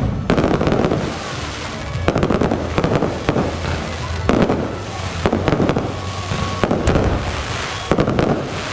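Fireworks display: aerial shells going off in a series of sharp bangs, one or two a second, over a continuous crackling hiss.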